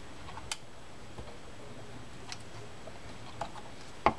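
A few sharp metal clicks and taps from the reel's handle and handle wrench being fitted onto the handle nut of an Ocean City 210 fishing reel. The parts are not lining up, and the loudest click comes near the end.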